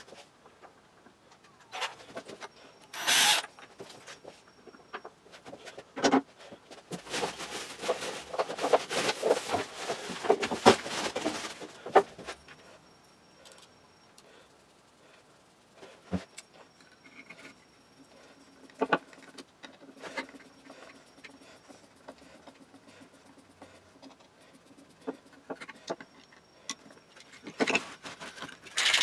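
Small wooden toy-plane parts and hand tools being handled on a wooden workbench: scattered clicks and knocks as pieces are picked up and set down, with a few seconds of rapid scratchy clicking near the middle.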